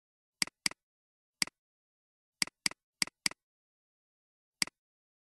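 Computer mouse clicks: eight short, sharp clicks, several in quick pairs about a quarter second apart like double-clicks selecting words, with dead silence in between.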